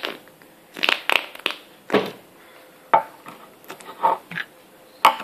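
Slime being squeezed and handled: a string of short, irregular squishing and crackling noises.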